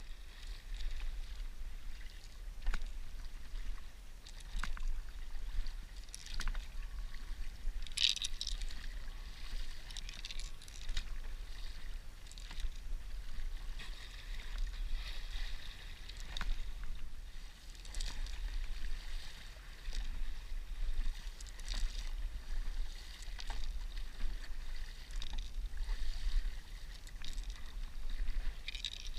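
Stand-up paddleboard paddle strokes: the blade dipping and pulling through calm sea water with a splash about every two seconds, over the steady wash of water along the board.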